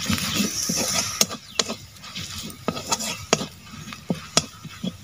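A steel spatula stirs and scrapes in an iron kadai, clicking sharply against the metal several times at an uneven pace. The masala of onion, garlic and chilli and turmeric powder sizzles, most clearly in about the first second.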